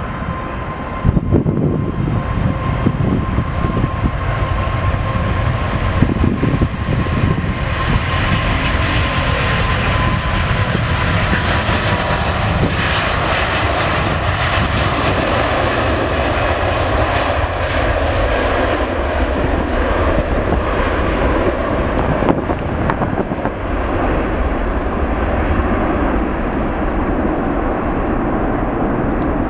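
Airbus A380's four turbofan engines at takeoff power through the takeoff roll and climb-out. A steady whine in the first half slowly drops in pitch under a broad roar, which is brightest about halfway through as the jet passes.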